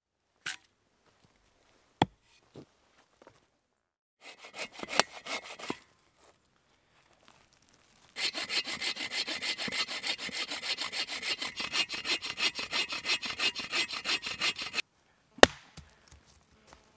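Bow saw (Agawa Canyon Boreal 21) cutting through a green log: a brief run of rasping strokes, then a long steady run of quick, even strokes lasting about six and a half seconds. Near the end comes one sharp hatchet chop into wood.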